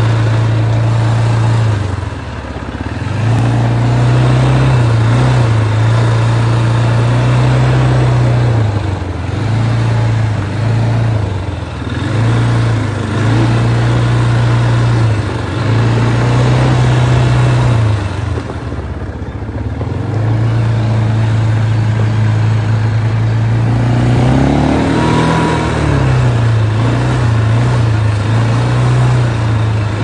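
Small motorbike engine running during a ride, its pitch rising and falling as the throttle opens and eases off several times, over steady wind and road noise.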